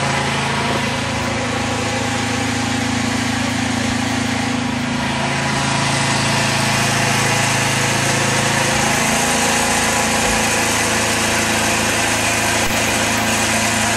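Snowblower's small engine running steadily, its note shifting slightly about nine seconds in.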